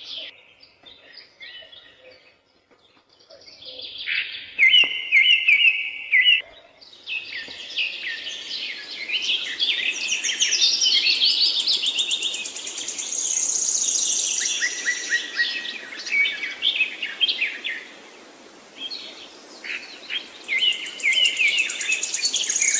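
Several birds chirping and singing, with fast repeated trills and overlapping calls, sparse at first and busier from about a third of the way in.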